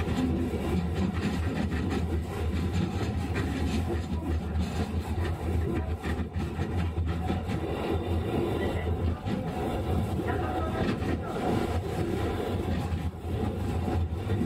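Sapporo streetcar M100-class tram M101 running, heard from inside the car: a steady low hum under the rumble of wheels on the rails.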